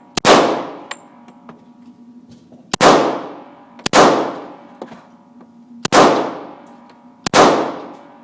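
Handgun firing five single shots at uneven intervals, each crack followed by a long ringing echo that fades away.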